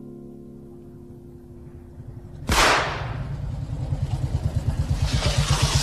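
A single shotgun shot cracks about two and a half seconds in, with a long echoing tail, as a motorcycle engine runs with a fast even beat and grows steadily louder as it approaches. Before the shot, the last tones of a gong-like chime fade out.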